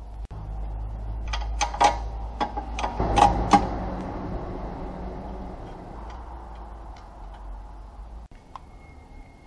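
Hyundai Matrix 1.8 front differential bearing banging: a quick run of sharp knocks over a steady low rumble, a sign of a worn differential bearing. The rumble stops suddenly near the end.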